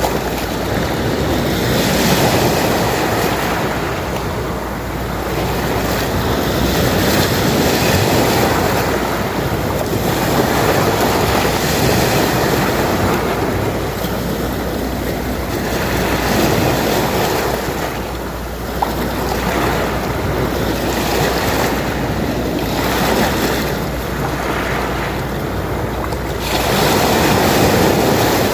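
Sea waves washing onto a shore, the surf swelling and falling back every few seconds, with a steady low rumble of wind on the microphone.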